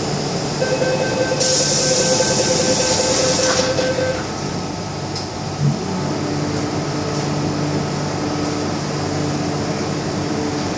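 MTR M-Train door-closing sequence from inside the car: the door warning tone sounds for about three and a half seconds, with a loud hiss through its middle. A thud follows as the doors shut, then a steady hum with a low tone as the train's traction equipment takes up.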